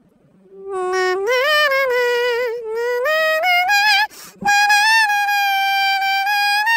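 Red poodle singing in long, howl-like notes that step upward in pitch, starting about half a second in. After a short break a little past the middle, it holds one long higher note.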